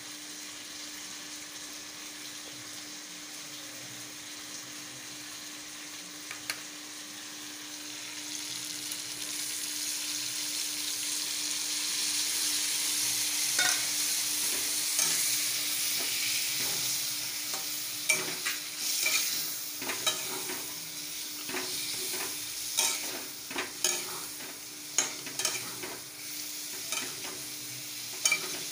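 Chicken curry frying in a steel kadai, the sizzle swelling louder about eight seconds in. Through the second half a metal spatula scrapes and clinks against the pan again and again as the chicken is stirred, over a faint steady hum.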